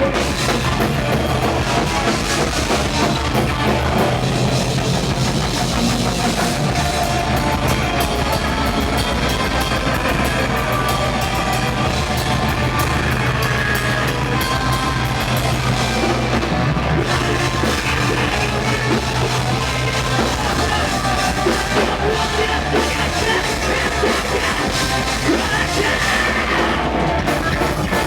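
Rock band playing a song live, driven by a drum kit, loud and dense throughout, with a sustained low bass note held through much of it.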